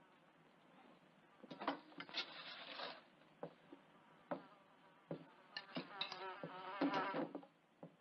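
Housefly buzzing in two passes, its whine wavering in pitch, with a few sharp clinks of utensils against the dishes in between.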